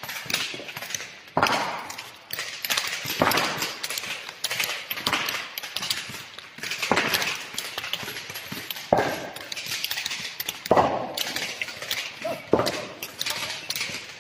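A series of hard crunching knocks and clatters, the strongest about one every two seconds, with smaller clicks between them.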